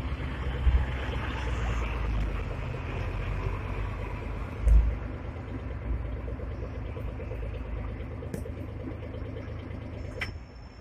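Hong Kong double-decker electric tram running, its wheels and running gear rumbling on the rails. Heavy thumps come about a second in and again near the five-second mark as the wheels pass over track joints or points, and the sound drops away near the end.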